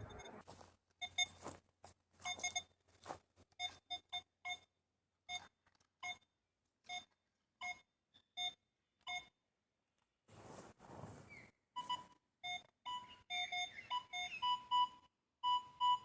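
Metal detector giving short electronic target beeps over a buried metal target, one every half second or so. Lower-pitched beeps in the first part give way to higher-pitched ones after about twelve seconds. A brief scuffing noise comes near the start and again around ten seconds in.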